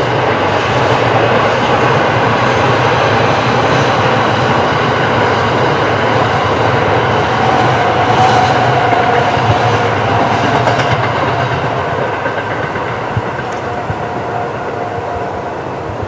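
A limited express electric train passing at speed, a steady rushing roar of wheels on rail that swells to its loudest about halfway through and then fades as the train moves away.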